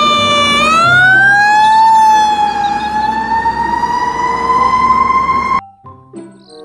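Fire truck siren wailing over the engine's low rumble, its pitch dipping, then sliding up and drifting slowly higher. It cuts off suddenly near the end, leaving faint chiming music.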